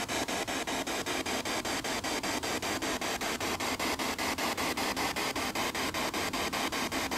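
Spirit box sweeping through radio stations: a steady hiss of static chopped by brief dropouts about six times a second.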